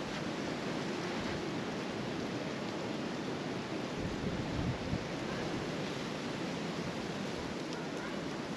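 Steady wind noise, swelling briefly about four to five seconds in.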